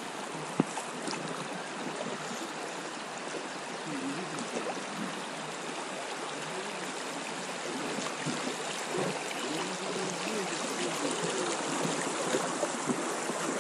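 Shallow river riffle rushing and gurgling around an inflatable PVC boat drifting through it, a steady hiss of moving water that grows slightly louder. A single sharp knock about half a second in.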